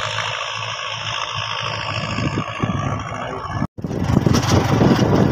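Tractor engine running steadily at a distance across a field. About three and a half seconds in, the sound cuts out briefly and gives way to a louder motorcycle engine running along a dirt track.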